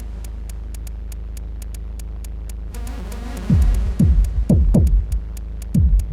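Modular synthesizer playing electronic music: a steady low drone under a fast, even ticking click. About halfway in, heavy kick-drum thumps with a falling pitch come in, in an uneven pattern.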